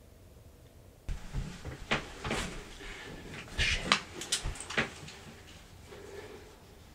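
Knocks, clicks and rustling of someone moving about inside a plywood box blind, starting about a second in, with the sharpest knocks near the middle.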